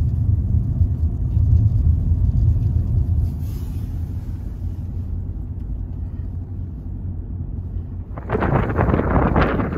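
Steady low road rumble of a car driving, heard inside the cabin. Near the end, loud gusty wind noise buffets the microphone.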